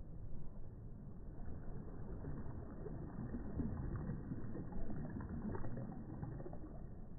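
Small waves breaking softly close up, a swell of surf and fizzing wash building after about two seconds and easing toward the end.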